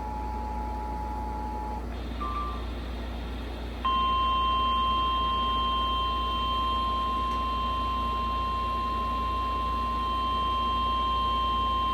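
The Emergency Alert System two-tone attention signal, two steady tones sounding together, ends about two seconds in. After a short higher beep, a single steady tone, the NOAA Weather Radio 1050 Hz warning alarm tone, starts about four seconds in and is louder than the two-tone signal.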